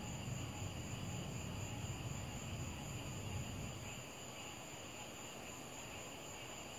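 Distant thunder rumbling low and dying away about four seconds in, over a steady chorus of night insects.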